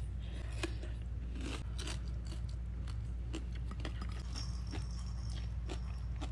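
A person chewing a mouthful of crispy Mings Bings, a large spring-roll-like wrap, with irregular crisp crunches. A steady low hum runs underneath.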